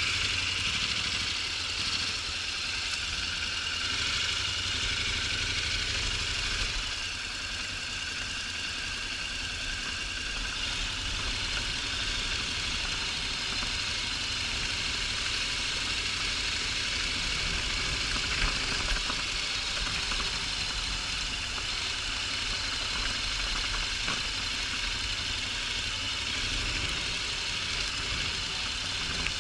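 Honda NC750X motorcycle's parallel-twin engine running steadily at an even pace, under a constant hiss of wind and road noise on the action camera's microphone.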